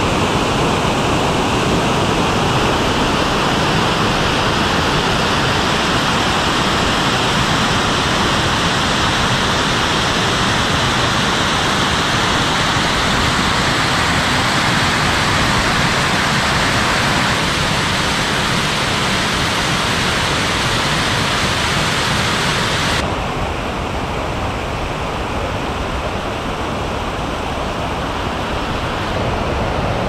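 Alpine mountain stream rushing over rocks, a loud steady hiss of white water. About two-thirds of the way in it switches to a slightly quieter, duller rush of a wider rocky torrent.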